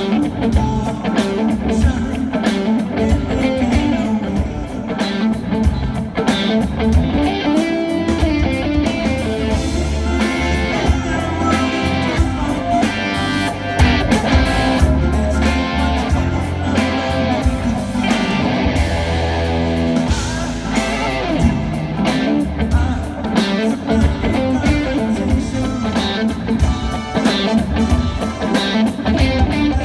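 A live rock band plays at a sound check, with the electric guitar loudest in the mix over the rest of the band. Drum hits land steadily throughout.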